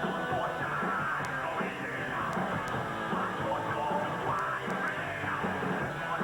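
Rock band playing heavy, loud rock music, with a yelled vocal over the instruments.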